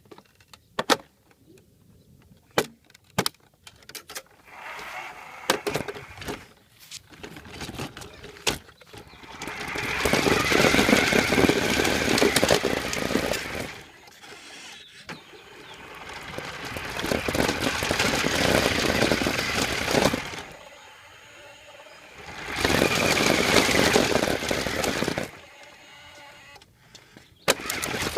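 Remote-control car driven in three bursts of a few seconds each, its electric motor running with a whine that rises and falls. Scattered clicks and knocks come in the first few seconds.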